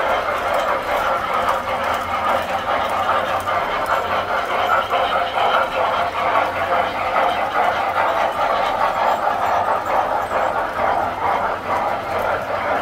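Tinplate toy electric trains running on metal track: a steady whir and rattle of motors and wheels.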